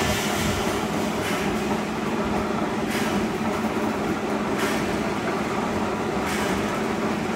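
3D panel wire-mesh welding machine running, a steady mechanical hum with a brief rush of sharper noise repeating about every 1.7 seconds as it works through its cycle.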